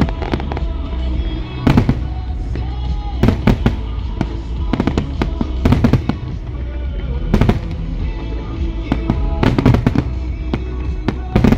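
Aerial fireworks shells bursting in a large display: a rapid, irregular series of sharp bangs, some in quick clusters, over a continuous rumble of explosions.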